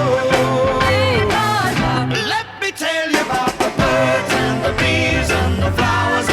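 A 1960s-style pop song playing, with singing over a steady bass and drum beat.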